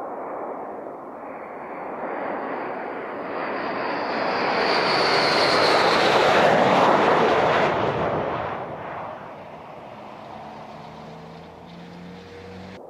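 Military fighter jet passing at takeoff. The jet noise builds to its loudest about six to seven seconds in, then fades, with a high whine rising in pitch as it approaches.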